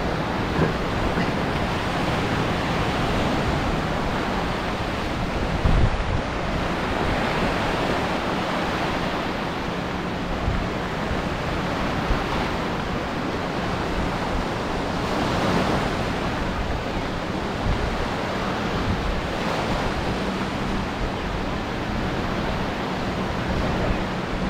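Sea surf washing steadily onto the beach, with wind on the microphone and a few brief low thumps, the loudest about six seconds in.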